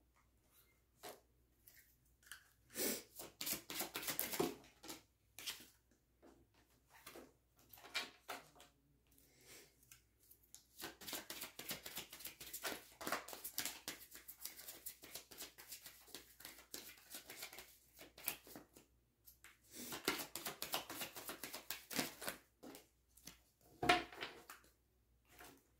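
A deck of tarot cards shuffled by hand: short flurries of card edges clicking and rustling against each other, a long stretch of steady shuffling in the middle, and one sharp knock of the deck near the end.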